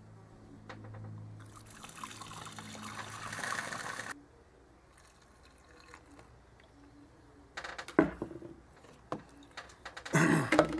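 Water poured through a plastic funnel into a plastic gallon jug of copper sulfate crystals, filling the jug to make a saturated solution. It splashes and hisses from about a second and a half in, brightens as the jug fills, and stops abruptly about four seconds in. A few knocks of plastic being handled follow near the end.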